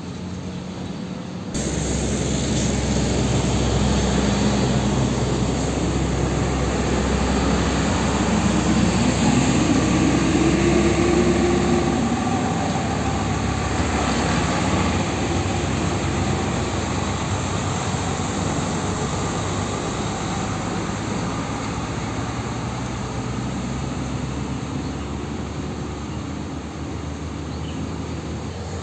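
Heavy diesel truck engine accelerating, its note rising for a few seconds, over steady street traffic and tyre noise.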